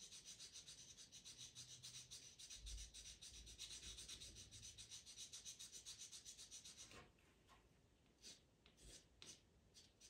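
Faint scratching of a pastel pencil on Pastelmat paper: quick short strokes, several a second, for about seven seconds, then a few separate strokes.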